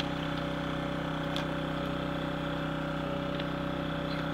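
A motor running steadily at an even idle, with a faint click about a second and a half in.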